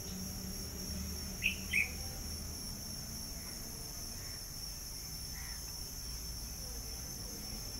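Steady high-pitched chorus of insects, crickets or cicadas, with two short chirps close together about one and a half seconds in and a few faint chirps later.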